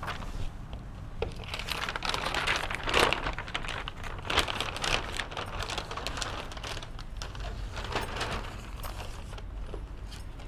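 Large sheets of chart paper rustling and crinkling as they are pulled off a whiteboard and gathered up, in an irregular run of crackles that is busiest through the middle.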